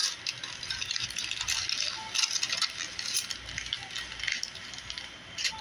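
Aluminum foil being crumpled and squeezed by hand: a continuous crinkling and crackling.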